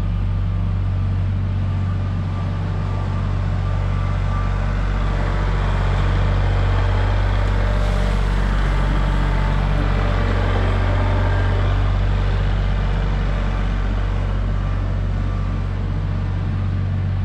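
Tractor engine running steadily at a constant speed, a loud low drone with a hard, even hum.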